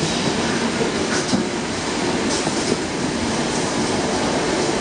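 Inside an ER2R electric multiple-unit train running along the line: a steady rumble and rush of wheels on rails, broken by a few sharp clacks from the wheels on the track.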